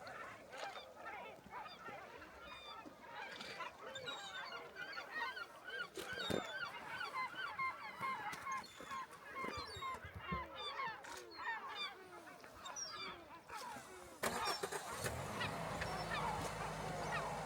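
A large flock of coastal birds calling constantly, many short arched calls overlapping one another. A little past the three-quarter mark, a steady low hum comes in under them.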